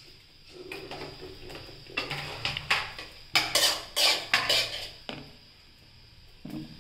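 Plates clattering: a run of knocks and scrapes, loudest between about three and five seconds in.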